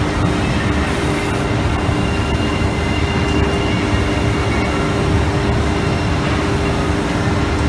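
ATC CNC router's spindle routing a door panel: a steady machine drone with a couple of constant hum tones, with the bag-type dust collector's blower running alongside.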